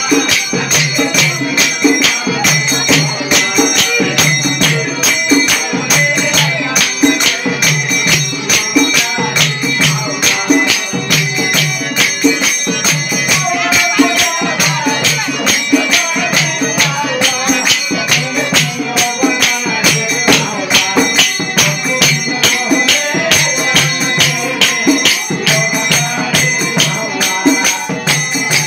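Loud, fast folk devotional music: rapid jingling, rattling percussion over a steady low drum beat, running without a break.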